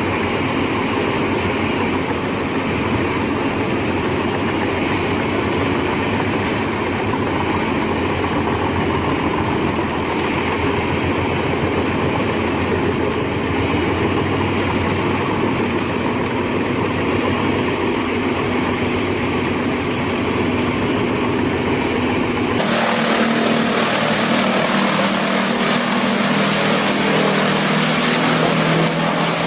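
Heavy machinery running steadily. About 22 seconds in the sound cuts abruptly to a different, hissier machine noise.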